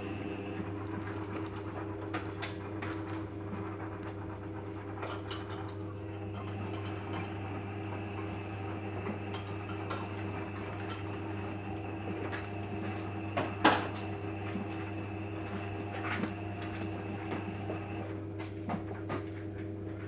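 Beko WMA 1510 W front-loading washing machine washing a load in sudsy water: a steady motor hum under the turning drum, with scattered light clicks and knocks and one louder knock about two-thirds of the way through.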